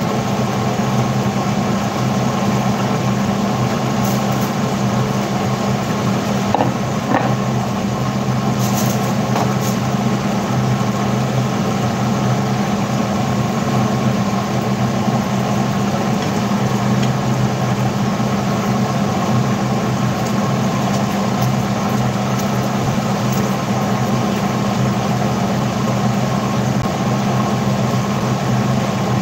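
A steady mechanical hum, as of a fan or small motor running, with a few faint clicks about seven and nine seconds in.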